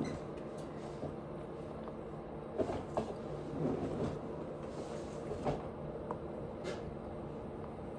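Close-miked eating: soft chewing and wet mouth sounds with a few sharp clicks scattered through, over a steady low hum.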